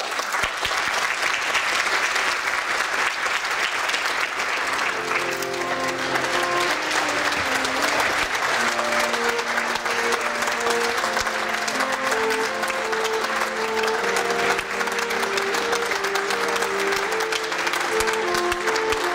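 Audience applauding steadily, starting suddenly. About five seconds in, live instrumental music starts up and plays on under the clapping.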